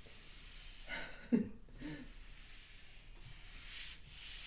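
A woman's breath sounds: a short, sharp vocal burst about a second and a half in, a smaller one just after, and a longer breathy exhale or sniff near the end.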